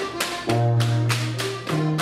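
Bavarian folk-dance music with a steady bass line and sharp percussive hits about four times a second.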